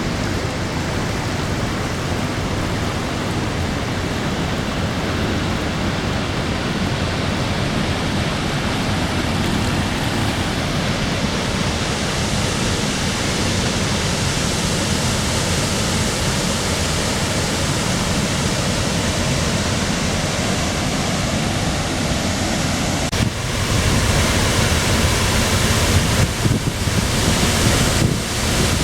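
Steady rush of a waterfall's falling water, growing a little louder about three-quarters of the way through.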